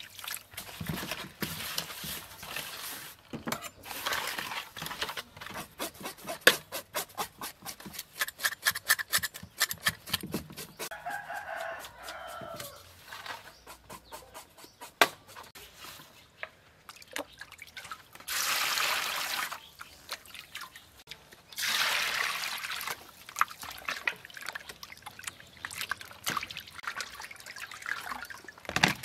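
Salted fish being washed by hand in a stainless steel bowl: wet rubbing and splashing with many small clicks against the metal, and water poured from a scoop into the bowl in two long pours past the middle. A rooster crows in the background about ten seconds in.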